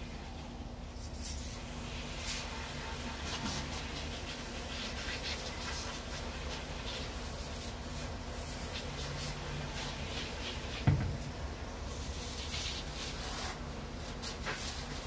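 Garden hose spray nozzle rinsing a fillet knife and cutting board: water hissing and spattering off the blade and board, with one sharp knock late on.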